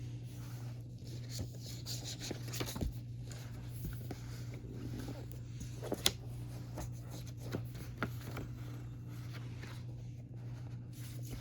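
Hands handling paper and plastic album packaging: light rustling and rubbing with small taps and clicks, one sharper click about six seconds in, over a steady low hum.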